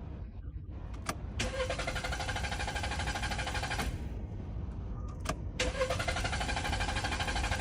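Car's starter cranking the engine twice, each time for about two and a half seconds, with a click before each attempt, and the engine not catching. This is a hard-start fault that the mechanic puts down to dirty fuel injectors clogged with oil sludge.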